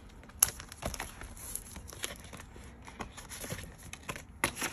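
Plastic binder pockets and divider pages of a ring-bound budget binder being handled and flipped, crinkling and rustling, with a string of sharp clicks, the loudest about half a second in.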